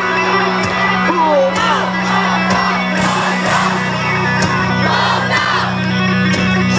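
Loud live music over a concert PA with a steady beat and a held bass note, while the crowd whoops and shouts over it.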